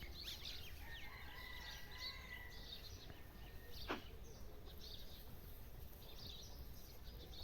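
Faint steady background noise with scattered small bird chirps. A steady high note is held for about two seconds starting about a second in, and a single sharp click comes near the middle.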